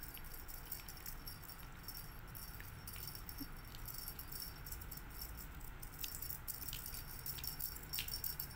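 Faint light jingling and scattered small ticks as a kitten paws at a plush wand toy.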